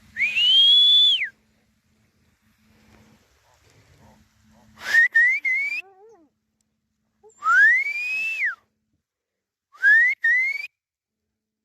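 Reindeer herder whistling to drive the herd on. There are four calls: a long whistle that rises then falls, a quick run of three short rising whistles about five seconds in, another long rise-and-fall whistle, and two short rising whistles near the end.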